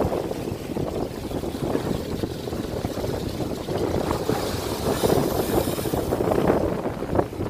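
Sea water surging and splashing among coastal rocks, with wind rumbling on the microphone. A brighter splash of spray comes about five seconds in.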